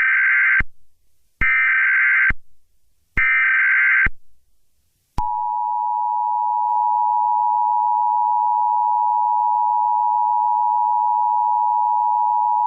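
Emergency Alert System tones: three short bursts of SAME header data chirps, about a second and a half apart, then the steady two-tone EAS attention signal, which starts about five seconds in and holds.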